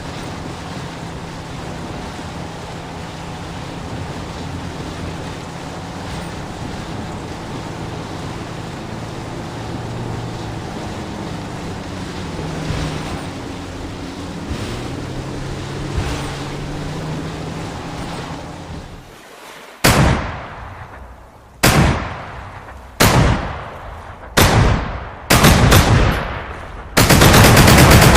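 Boat motor running steadily over water and wind noise. About two-thirds of the way in, a machine-gun sound effect fires five short bursts, each dying away, then keeps firing continuously near the end.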